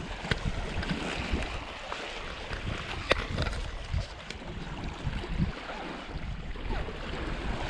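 Wind buffeting the microphone over small waves lapping on a rocky shore, with a few sharp clicks.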